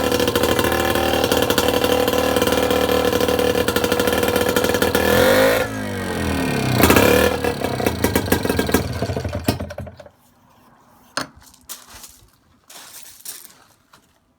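1949 British Seagull 102 Series single-cylinder two-stroke outboard motor running, its revs falling and picking up again midway, then dying away and stopping about ten seconds in. A few light knocks follow.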